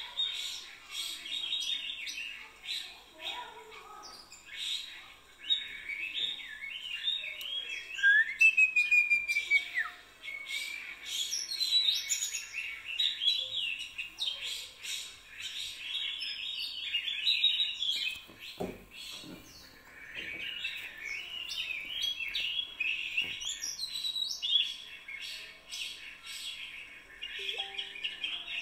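Many small birds chirping at once, a dense, unbroken chorus of short high chirps with a few longer whistled notes. A brief low falling sound cuts in about two-thirds of the way through.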